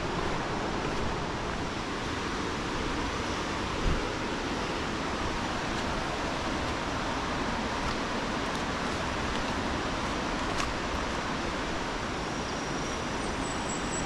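Steady rush of fast-flowing water from a jungle river or waterfall, an even, unbroken hiss. A single low thump comes about four seconds in.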